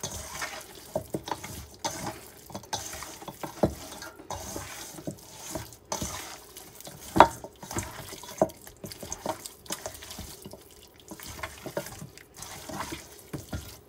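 Hands mixing oiled, spice-coated raw chicken legs in a stainless steel bowl: irregular wet squelches and slaps, with the loudest one about seven seconds in.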